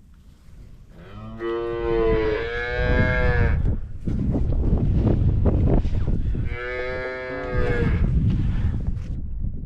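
Holstein calves bawling: two long moos, the first about a second in and the second about six and a half seconds in, with rough low noise between them.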